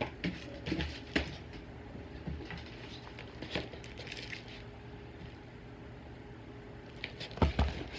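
Small cardboard parcel boxes and a paper envelope being picked up and handled: scattered light knocks and rustling, with a couple of louder knocks near the end.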